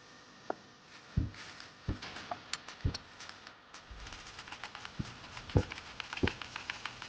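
Irregular clicks and knocks of objects being handled, with about half a dozen deeper thuds among lighter ticks.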